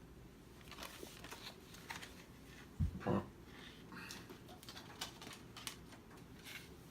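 Light clicks and paper rustling from the pages of a Blu-ray set's episode guide being handled, with one louder thump about three seconds in.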